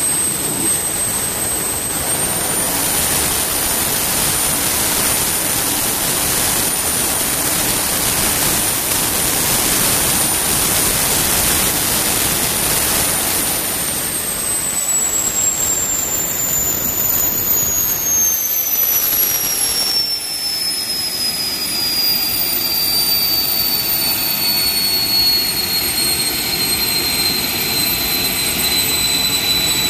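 Small aircraft generator gas turbine (about 40,000 rpm) running with a loud rushing roar and a high whine. A little past halfway the whine starts gliding steadily down in pitch and the roar eases as the turbine slows.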